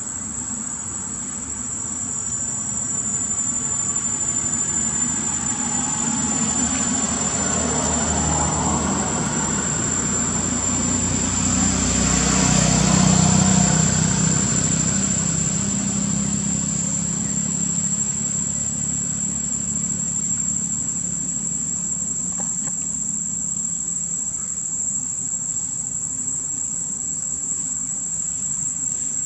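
Insects droning with a steady high-pitched tone, while a passing vehicle's engine swells to its loudest about halfway through and then fades.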